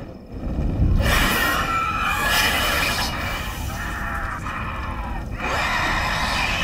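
Loud horror-film soundtrack at a short film's climax: a dense swell of effects and score that builds sharply about a second in and stays loud.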